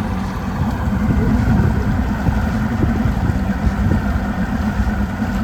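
Motorboat engine running steadily with a constant low hum, under a rough low rumble.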